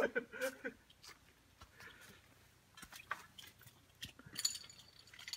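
Scattered soft rustles and light clicks of someone moving about in a tarp tent on a ground sheet. A brief crinkly scraping sound comes about four and a half seconds in.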